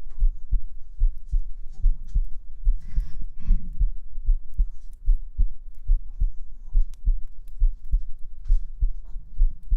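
A person's heartbeat, amplified and heard up close: a quick, steady lub-dub beat. A brief rustle comes about three seconds in.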